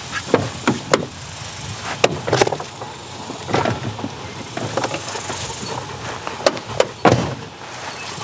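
A string of separate knocks and clunks from a pickup truck's doors and a plastic dog crate on its back seat being handled, the loudest near the end.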